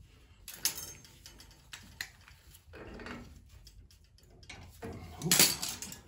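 Metal hand tools and fittings clinking and knocking as they are handled. There are a few separate clicks early and a louder clatter about five seconds in.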